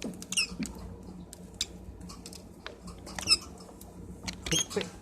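Lovebirds giving a couple of short, high chirps, among scattered light clicks and taps.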